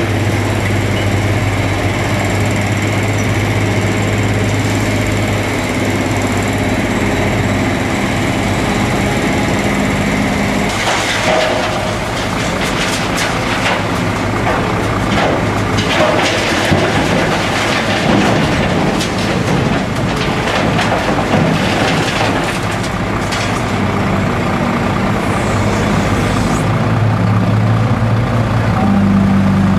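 Large crawler excavator's diesel engine running with a steady hum. From about 11 seconds in come repeated irregular clattering and banging as demolition rubble is dropped into a dump truck's steel tipper body. The steady engine hum stands out again near the end.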